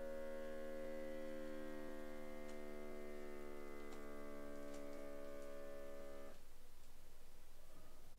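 Dr Morepen BP 09 blood pressure monitor's small air pump running with a steady hum as it inflates the arm cuff to take a reading, stopping abruptly about six seconds in.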